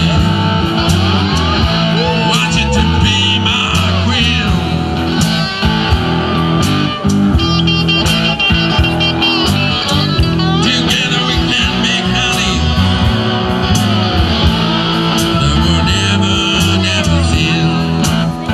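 Live blues band playing amplified homemade cigar box guitars with bass, continuous guitar-led Mississippi Delta-style blues.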